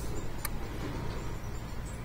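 Steady low outdoor background rumble with one faint click about half a second in.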